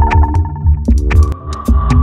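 Electronic music: a regular deep bass pulse with sharp high percussive ticks and synthesizer tones, joined about halfway through by a held high synth tone.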